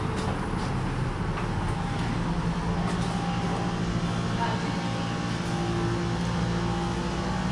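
Background music with long held low notes that change pitch near the end.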